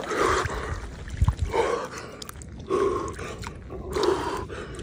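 A man's loud, voiced exhalations from the shock of immersion in cold water, four of them a little over a second apart, with water dripping and sloshing around him in a plunge font.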